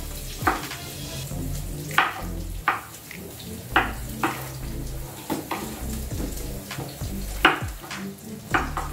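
Kitchen knife chopping potato on a wooden cutting board: irregular sharp knocks of the blade hitting the board, about one a second.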